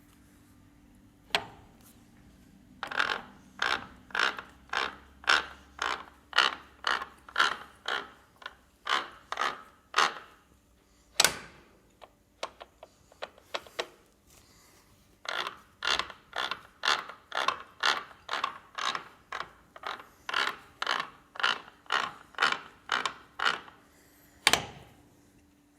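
Radial drill's gear reducer with steel straight bevel gears working, giving short clicking, rasping strokes about twice a second in two long runs, with a few single sharper clicks between them.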